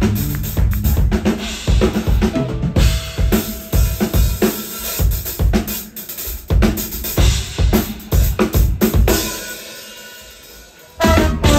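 Live funk drum kit playing a break, with kick drum, snare and cymbal hits. About nine seconds in the hits stop and the sound dies away for a couple of seconds. The full band, horns included, comes back in near the end.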